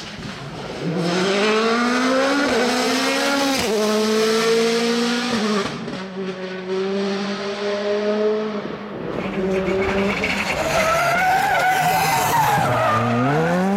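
Rally car engine at full throttle, revs climbing and dropping back through several quick upshifts, easing off, then building again with a sharp dip and re-climb near the end. Tyres squeal and skid on the stage surface.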